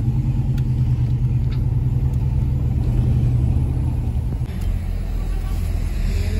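An old car's engine and exhaust rumbling, heard from inside the cabin as the car drives off through an intersection. The rumble drops in pitch about four and a half seconds in.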